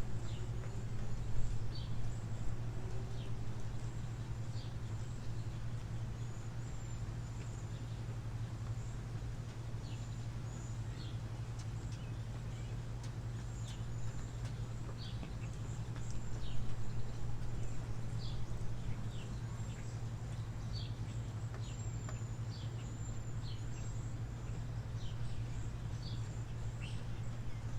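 Birds chirping: short, high calls repeating every second or two over a steady low hum.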